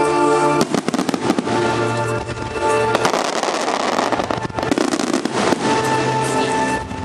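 Fireworks shells bursting and crackling in quick succession over music of long held notes. The bangs begin about half a second in and thicken into a dense crackle around the middle.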